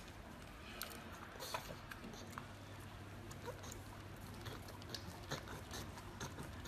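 A pug licking food off a metal spoon: irregular wet smacks and small clicks of tongue and teeth on the spoon, over a faint steady low hum.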